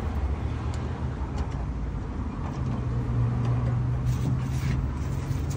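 A motor vehicle engine running nearby, a steady low hum whose pitch steps up about two and a half seconds in, with a few faint clicks over it.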